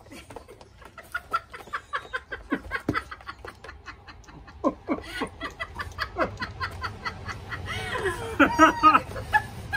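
People laughing in quick repeated bursts, getting louder about eight seconds in.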